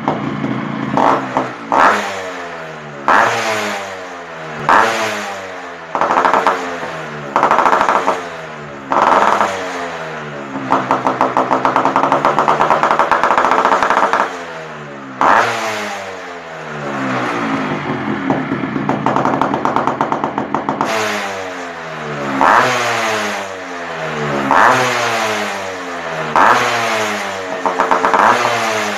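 Yamaha RX two-stroke single-cylinder motorcycle with a Killer Cat exhaust being revved in repeated short throttle blips, about one every one to two seconds, the pitch rising and falling with each. Twice it is held at higher revs for a few seconds, around the middle.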